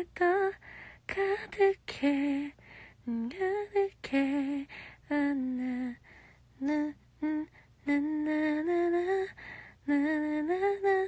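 A woman humming a melody without words in short phrases, her held notes wavering slightly.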